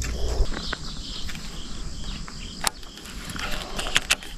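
Insects chirping in a steady pulse, about two chirps a second, with a few sharp clicks from fishing tackle being handled, the loudest near the end.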